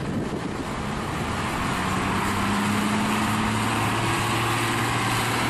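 Farm tractor's diesel engine running steadily under load as it pushes a boat, a steady hum that grows stronger about a second and a half in.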